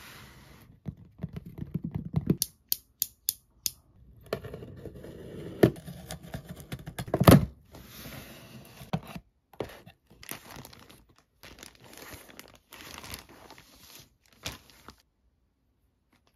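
Cardboard shipping box being opened by hand: tape tearing, flaps scraping and crinkling, with a run of sharp clicks in the first few seconds and a loud crackle about seven seconds in. The handling noise stops abruptly about fifteen seconds in.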